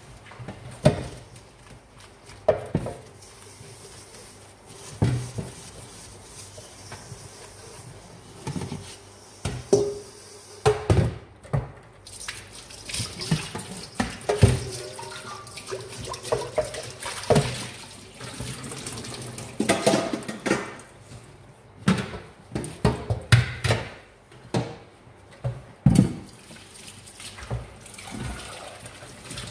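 Dishes being washed by hand at a stainless steel kitchen sink: tap water running and splashing, with irregular clanks of metal bowls and pots against the sink. The running water is heaviest toward the middle.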